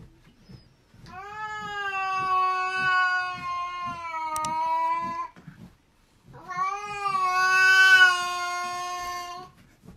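A cat giving two long, drawn-out yowls, the first about four seconds long and the second about three, with a short pause between; the second is the louder.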